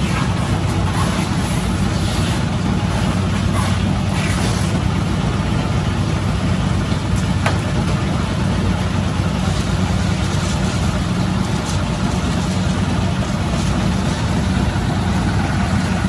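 Steady street traffic noise with a motor engine idling close by, its low hum unchanging throughout.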